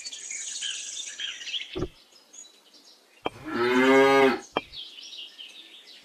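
A cow mooing once, a single call about a second long a little past the middle, with a few light clicks before and after it.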